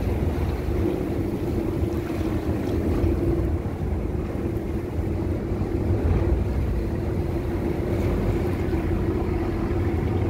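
A small boat's engine running steadily underway, a constant low rumble with a steady hum, with wind buffeting the microphone and water rushing along the hull.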